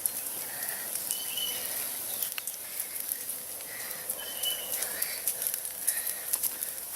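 Campfire crackling, with scattered sharp pops over a steady hiss, while a bird calls twice with short high notes, about a second in and again about four seconds in.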